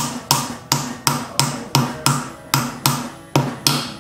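Hammer tapping a seal driver to drive a side axle seal into a Nissan R200 differential case: steady, evenly spaced taps about three a second, eleven in all, each with a short metallic ring.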